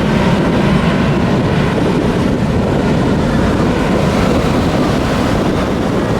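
Wind buffeting the microphone over the steady wash of ocean surf on the beach.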